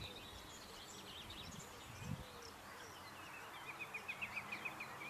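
Faint birdsong from several small birds: scattered high chirps, and near the end a quick trill of about ten rapidly repeated notes.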